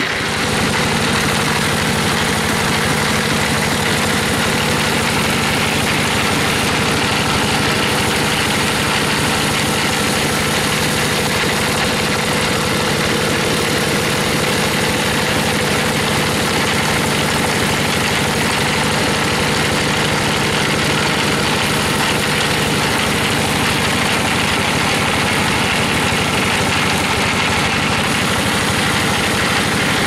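Stationary diesel engine powering a sawmill, running steadily at an even speed.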